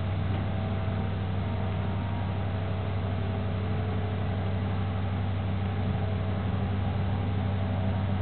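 Diesel engine of a heavy-haulage abnormal-load rig running as a steady low drone while the multi-axle trailer crawls along.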